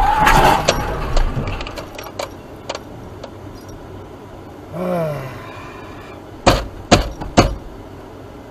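Aftermath of a car crash. A loud scraping, sliding noise fades over the first second or two as the crumpled car comes to a stop, with a few clicks. A short voice sound falls in pitch about five seconds in, and three sharp knocks follow between about six and a half and seven and a half seconds.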